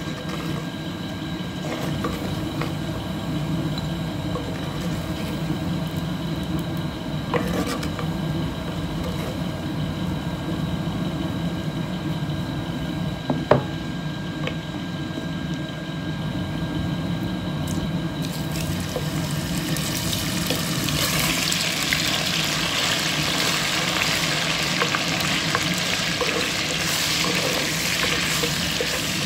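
Veal and lamb cooking in their own juice and fat in a terracotta casserole, with liquid sounds and a sharp clink about halfway. From about two-thirds of the way through, the meat starts to sizzle loudly.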